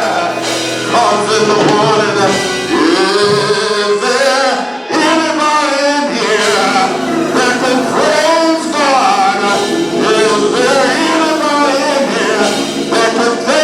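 Gospel song with singing voices over instrumental accompaniment.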